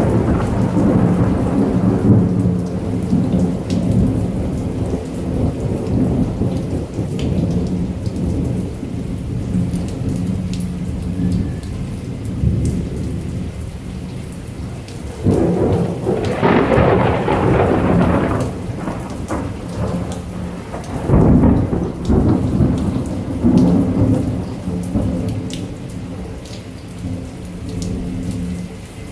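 Thunderstorm with heavy rain: thunder rumbles continuously under the rain. A louder peal swells about halfway through, and two shorter ones follow a few seconds later.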